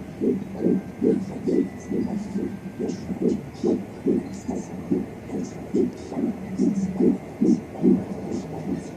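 Fetal heartbeat at 13 weeks picked up by a handheld fetal Doppler monitor: a fast, even pulse of about two and a half beats a second, about 147 beats per minute.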